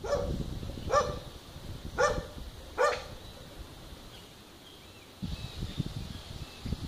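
A dog barking four times, about a second apart, followed by a low rumbling noise in the last couple of seconds.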